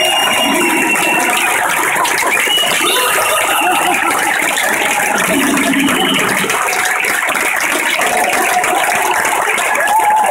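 Large concert audience cheering and clapping, with a few held whistles cutting through.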